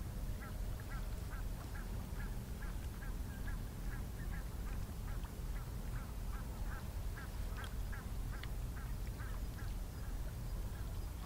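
Waterfowl calling: a flock of geese or ducks giving short repeated honking calls, several a second, over a steady low rumble.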